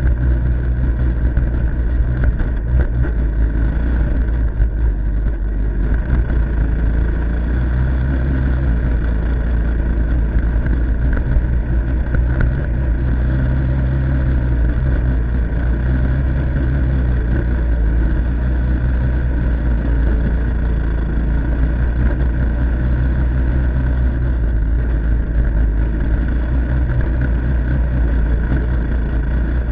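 Honda Big Red 200E ATC's single-cylinder four-stroke engine running steadily under way, with small shifts in engine speed.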